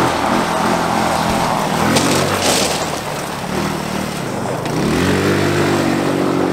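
150cc GY6 single-cylinder four-stroke engine of a Power Wheels go-kart running under throttle, its pitch wavering, dipping, then climbing about five seconds in and holding steady. A brief rush of hiss comes about two seconds in.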